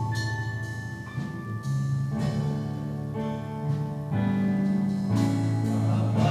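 Instrumental accompaniment to a gospel choir song: a band or keyboard plays held chords over a bass line, with the notes changing about once a second.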